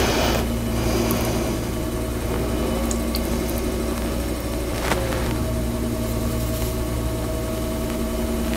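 Electric potter's wheel motor running with a steady hum while the wheel turns a plate for banding slip onto its rim. There is one sharp click about five seconds in.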